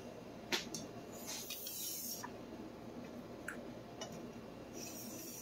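Faint, light strokes of a stainless steel santoku blade drawn across a whetstone with the edge trailing, deburring the freshly sharpened edge: soft hissy scrapes about a second long. There is one sharp click about half a second in and a few small ticks.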